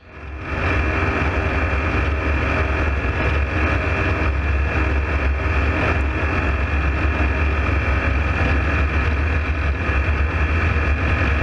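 Ultralight aircraft engine running steadily in flight, heard loud and close from on board the open cockpit. It rises in over the first half second and then holds an even drone.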